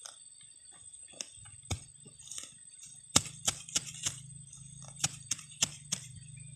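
Soil being scraped and pressed around the base of an eggplant seedling by hand and a small hand hoe: a string of sharp, irregular clicks and scratches, coming thicker from about halfway through.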